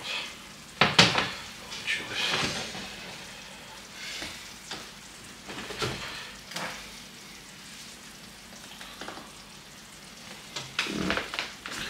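A hot casserole in a glass baking dish, just out of the oven, sizzling faintly. A sharp knock about a second in, the loudest sound, and a few lighter knocks follow as the dish is set on the glass-ceramic hob and the oven door is shut.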